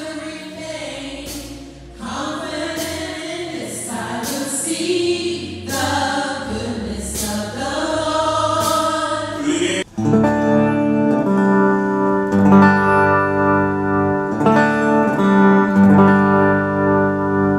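Gospel singing by women's voices with keyboard accompaniment, recorded on a phone in a church. About ten seconds in it cuts abruptly to a clean electric guitar playing sustained chords.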